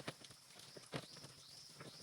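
A few short, sharp knocks, about a second apart, over a faint, steady, high-pitched hum.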